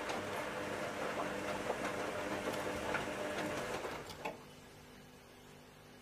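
Zanussi ZWF 1621 W front-loading washing machine turning its drum during a rinse: the motor runs with a steady hum while the wet laundry churns, with small clicks. It stops with a click a little after four seconds in, leaving a faint hum.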